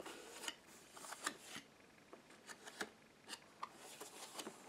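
Faint, irregular clicks and scrapes of a hand brushing over and flicking the small cardboard doors of an advent calendar.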